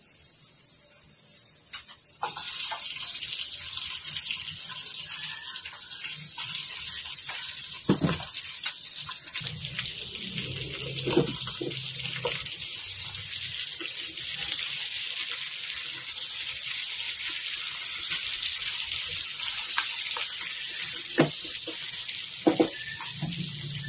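Pork pieces sizzling in hot oil in a pressure-cooker pot on a gas stove, a steady hiss that starts about two seconds in as the pork goes into the pot. A spatula knocks sharply against the pot a few times while the meat is stirred.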